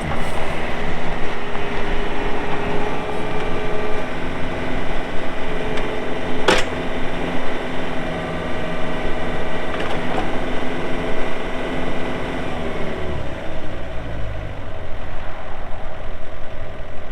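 Yanmar YB401W wheeled excavator's diesel engine running while the machine is worked, with a steady whining tone over it and a single sharp clank about six and a half seconds in. About thirteen seconds in the tone stops and the engine note drops lower.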